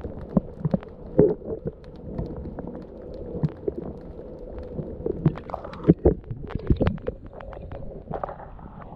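Muffled underwater sound from a camera held under harbour water: a low water rumble with irregular clicks and knocks.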